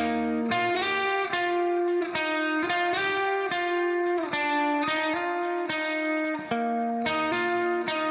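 Background music: an electric guitar playing plucked, effects-treated notes.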